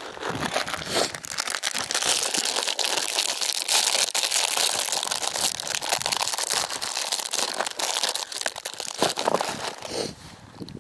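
Plastic wrapper of a Tastykake snack cake crinkling and tearing as it is opened by hand. The crackle is dense and continuous and trails off near the end.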